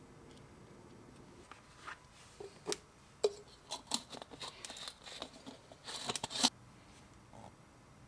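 Leather pieces and a small hand tool being handled on a cutting mat: an irregular run of light taps, scrapes and rustles that starts about one and a half seconds in and stops after about six and a half seconds. Two sharper clacks stand out, about three seconds in and near the end of the run.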